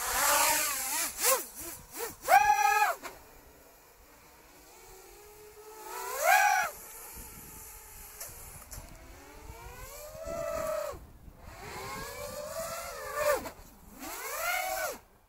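Motor and propeller of an RC model aircraft in aerobatic flight, heard from a camera on board. The pitch rises and falls with the throttle in about five bursts, with wind rush over the microphone at the start.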